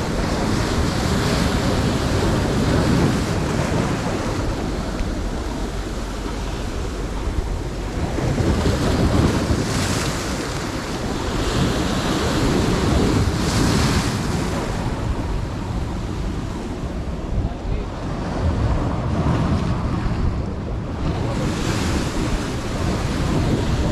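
Sea waves breaking and washing over shoreline rocks, with wind buffeting the microphone. The surf swells louder several times as waves crash in.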